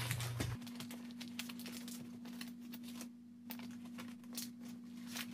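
Faint, scattered crinkling and soft taps of paper towel as raw pangasius fillets are flipped over on it, over a low steady hum.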